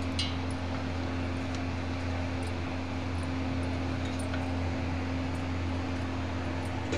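A steady low mechanical hum with a hiss over it, like a running fan, with one faint light clink just after the start.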